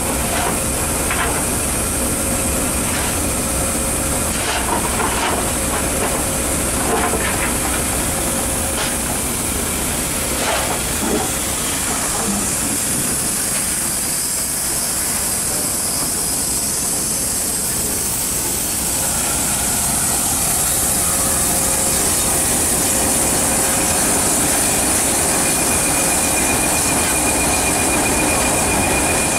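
Bulleid West Country class steam locomotive 34027 Taw Valley hissing steam steadily, with irregular metallic clanks through the first half. A steady high whine comes in near the end.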